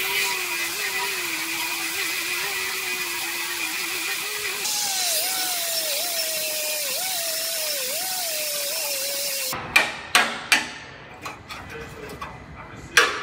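Hand-held pneumatic cut-off wheel cutting through a steel truck frame rail: a steady hiss with a whine that wavers as the wheel bites, sitting higher after about four and a half seconds. The cutting stops about nine and a half seconds in, and several sharp metal knocks follow as a hand tool strikes the frame.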